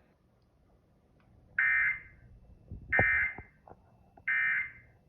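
Emergency Alert System end-of-message signal: three short bursts of SAME digital data tones, about a second and a half apart, marking the end of the alert.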